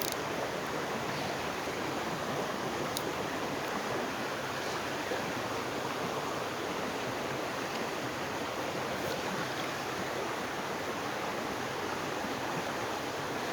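Steady rush of flowing river water, an even hiss with no rise or fall.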